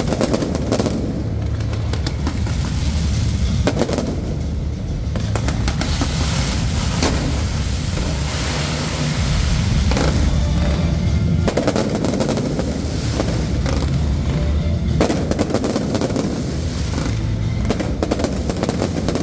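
Fireworks show fired from rows of light pillars: a dense, continuous crackle of rapid launches and bursts over a deep rumble of booms.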